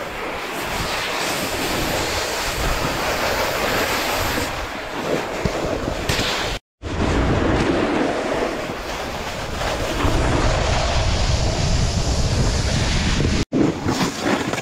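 Wind rushing over an action camera's microphone together with a snowboard sliding and scraping over snow at speed, a steady rushing noise. It cuts out briefly about halfway through and again near the end.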